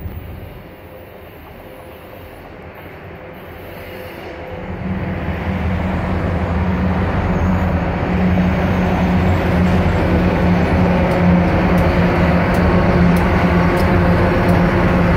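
RJ Corman diesel freight locomotives approaching and drawing level. Their engines' low drone grows steadily louder from about four seconds in, then holds as the lead units cross the bridge.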